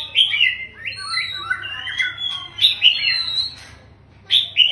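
Male white-rumped shama singing: a rapid run of varied whistled notes with rising and falling glides, a brief pause about three and a half seconds in, then the song starting again.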